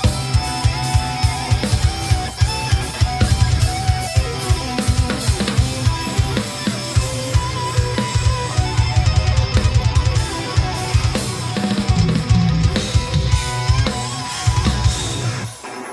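Drum kit played fast along with a guitar-driven progressive metal backing track, with dense rapid bass drum strokes and snare hits. The drums stop shortly before the end, leaving the guitar.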